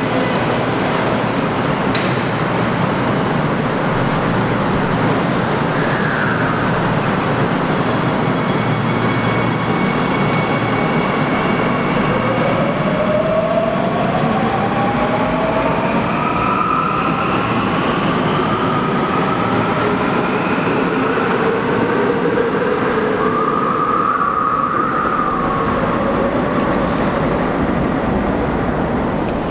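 Seoul Subway Line 9 electric train pulling out of an underground station: a steady rumble of the moving train, with a sharp click about two seconds in. About halfway through, the traction motors' whines begin rising in pitch as the train gathers speed.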